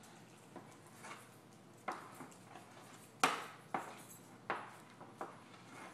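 Kitchen utensil knocking and clinking against a bowl several times, with sharp separate knocks, the loudest about three seconds in, as shrimp are spooned into the pasta.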